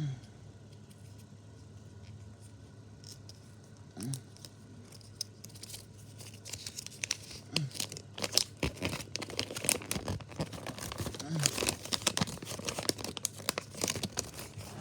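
Lego minifigure blind bag being handled, then torn open and crinkled: a few rustles at first, then a dense run of sharp crackling and tearing from about six seconds in.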